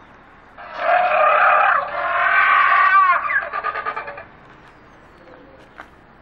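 Dinosaur roar sound effect, a loud screeching growl lasting about three and a half seconds. It sweeps downward in pitch about three seconds in and ends in a pulsing rattle.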